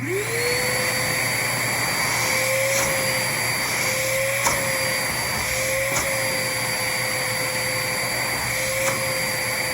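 DeWalt wet/dry shop vacuum switched on, its motor spinning up quickly and then running steadily with a whine over the rush of air through the hose as it sucks up sanding dust. A few short clicks break in along the way.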